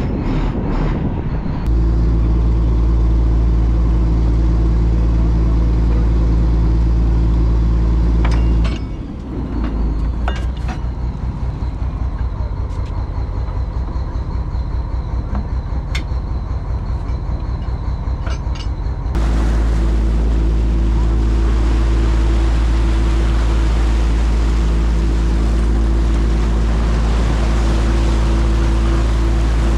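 Fishing boat's inboard engine running steadily, a loud low drone. For about ten seconds in the middle it gives way to a faster rattling beat with a few sharp clicks, then the steady drone returns.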